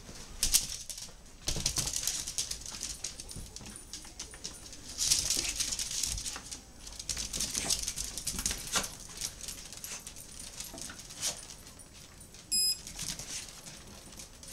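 Small dogs' claws clicking and scrabbling on a tile floor as they scramble about, in quick irregular runs of taps and scrapes. About twelve seconds in there is one short high beep.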